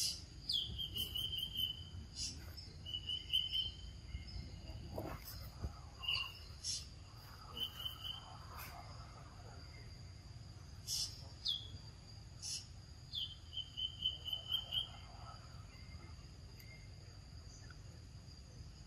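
Forest insects: a steady high-pitched insect drone, with short chirping trills repeating every second or two and a few sharp clicks.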